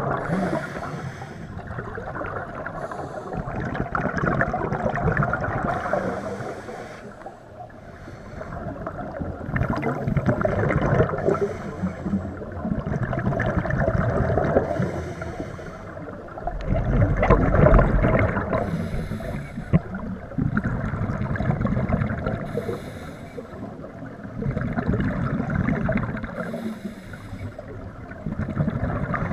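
Scuba regulator breathing underwater: slow breath cycles, with a bubbling gush of exhaled air about every three to four seconds over a continuous wash of water noise.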